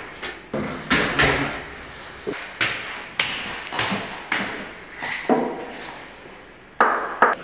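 Hammer knocking on a boot: about a dozen sharp, irregular knocks, roughly one every half second, each with a short ring.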